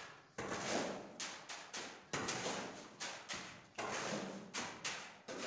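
Shovel scraping and scooping through wet cement mix on a concrete floor, in repeated quick strokes about two to three times a second.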